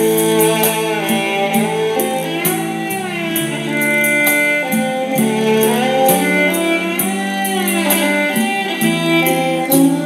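Music played from an MP3 CD on a Philips MCB240 micro hi-fi, heard through its 3-inch full-range speakers: a melodic passage with a steady beat.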